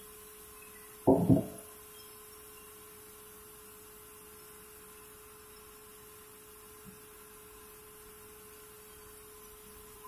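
Steady hum of a sawmill band saw running idle between cuts. About a second in, a heavy wooden thud, two knocks in quick succession, as timber is dropped or knocked against the carriage.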